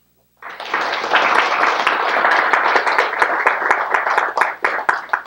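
Audience applauding: a dense run of clapping starts about half a second in and thins to a few scattered claps near the end.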